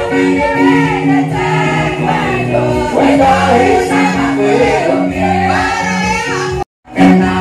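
Live gospel praise music: a church congregation singing together into microphones over amplified backing music. The sound cuts out for a split second near the end, then comes back.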